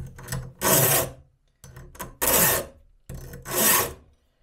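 Round chainsaw file in a file guide rasping across a chainsaw chain's cutter tooth: three even strokes about a second and a half apart, each preceded by a lighter scrape.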